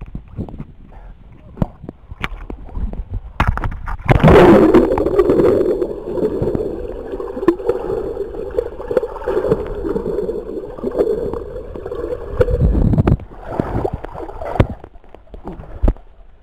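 Swimming-pool water splashing and sloshing around a camera held at the surface. About four seconds in, the camera plunges under and the sound turns to a muffled underwater gurgle for about nine seconds, then breaks back into surface splashing.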